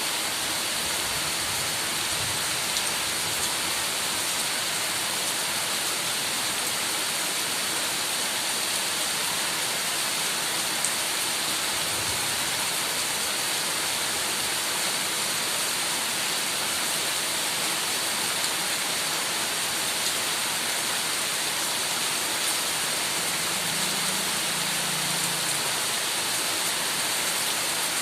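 Heavy rain falling steadily, an even hiss of dense drops with the odd faint tick of a single drop striking a surface.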